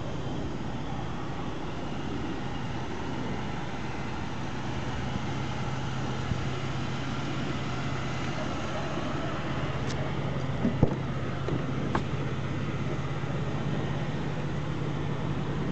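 Idling V6 engine of a 2006 Buick LaCrosse, a steady low hum. About ten to twelve seconds in, a few clicks and a knock as a rear door is opened.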